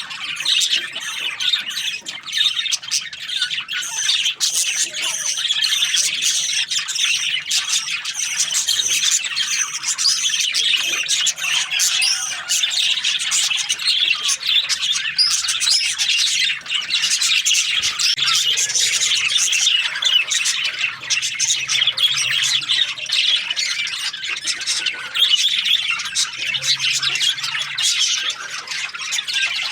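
A flock of budgerigars chattering together, many overlapping high calls in a dense, continuous chorus.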